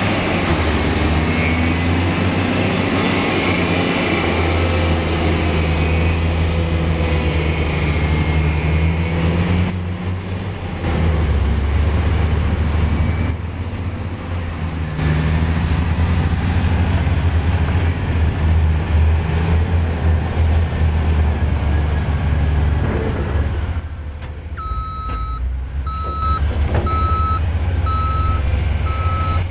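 Heavy diesel engines of Cat 740 articulated dump trucks running as the loaded trucks drive over rough dirt. Near the end a reversing alarm starts, sounding a steady series of high beeps as a truck backs up.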